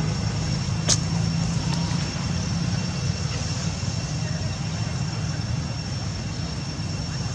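A vehicle engine running steadily with a low hum, along with a thin steady high whine; a single sharp click about a second in.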